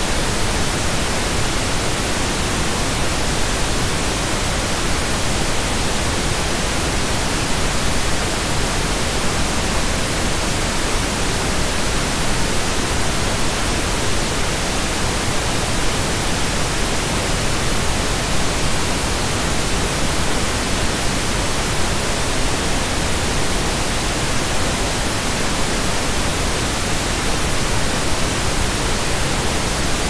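Pink noise test signal: a steady, even hiss spread across the whole range, unchanging throughout.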